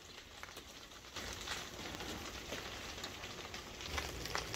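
Faint rustling, crackling patter with many small clicks, growing a little louder about a second in.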